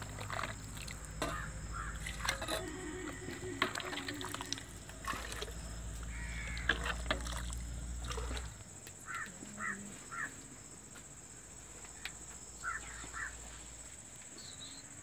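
Metal ladle clinking and scraping in a large pot of steaming chicken curry, over a low rumble that stops about eight seconds in. Short harsh caws of crows come in a few small groups later on.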